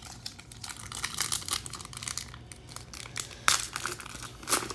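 A 2020 Panini Legacy football card pack wrapper being crinkled and torn open: an irregular string of crackles, with two louder rips about three and a half seconds in and near the end.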